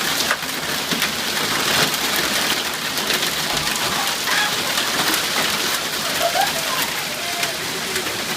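Hail coming down hard: a dense, steady hiss of countless small impacts, peppered with sharper ticks of stones striking hard surfaces.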